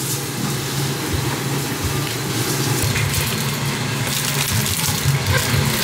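Individually plastic-wrapped financiers handled and packed into a paper box, with light crinkling and small ticks over a steady low hum.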